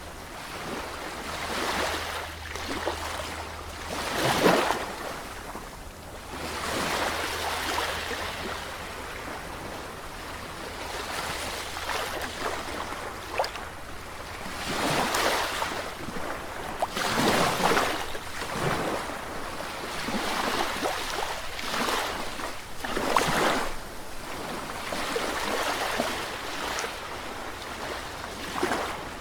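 Sea waves breaking and washing in, swelling into a loud rush every few seconds over a steady surf hiss.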